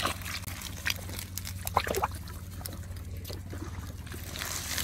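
Water trickling and dripping from a wet ring-net trap full of live fish as it is handled, with scattered small taps and splashes.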